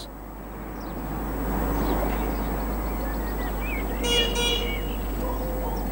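Road traffic ambience, a vehicle sound swelling over the first two seconds and then holding steady, with brief high bird chirps about four seconds in.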